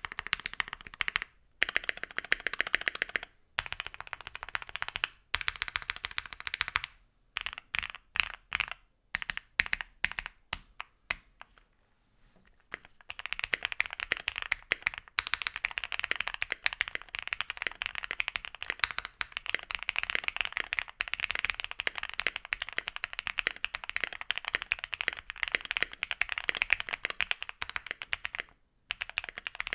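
Typing on a Keychron Q1 gasket-mounted 75% keyboard with stock Gateron Phantom Red switches on an aluminium plate. It opens with bursts of rapid keystrokes, then a few seconds of slower, separate key presses, then a long run of steady fast typing.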